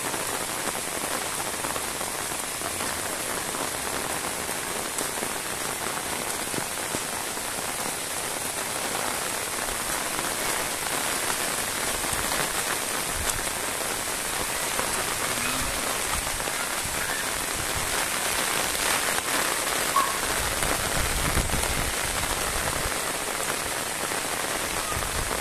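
Steady rain falling, an even hiss of many drops, swelling slightly about two-thirds of the way through.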